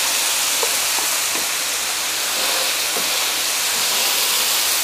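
Bacon, sausages and burger patties frying on the flat steel plate of a Blackstone 22-inch electric griddle: a steady sizzling hiss with a few faint crackles of spattering fat.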